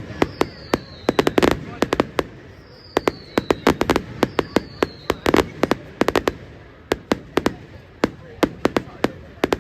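Fireworks display: a dense, irregular run of sharp bangs and crackles, with three falling whistles in the first half.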